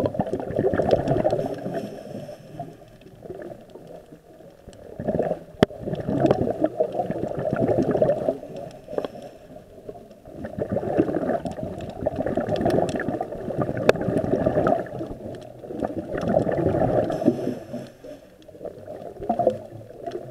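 Underwater scuba breathing: exhaled regulator bubbles gurgle in swells every four to five seconds, and the swells fade between breaths. Two sharp clicks stand out, one about five and a half seconds in and one near fourteen seconds.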